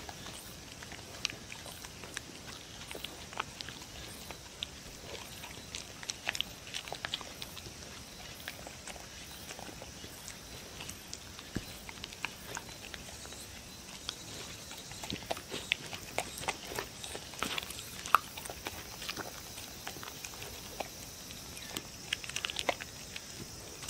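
A dog licking and chewing soft food off a wooden board: irregular wet smacks and clicks of tongue and jaws, busier past the middle and again near the end.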